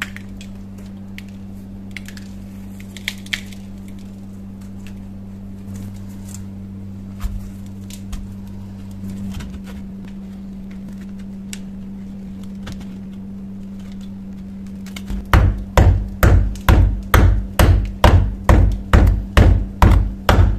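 A steel chisel scraping and picking caked dirt off a rusty shovel head, with scattered small clicks and scrapes over a steady low hum. About three-quarters of the way through, a run of heavy, evenly spaced thumps starts, about two or three a second.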